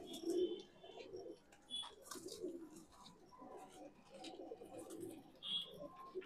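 Madrasi pigeons cooing in a pen, low coos repeating and overlapping, with a few light clicks.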